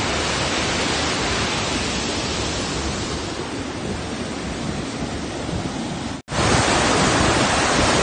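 Waterfall in full spate, white water pouring over rocks with a steady rushing sound. It grows slightly fainter over the first six seconds, breaks off for an instant, then comes back louder.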